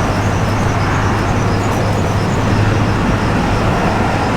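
Steady background noise with a constant low hum, like distant road traffic, and a faint row of quick, evenly repeating high chirps over it.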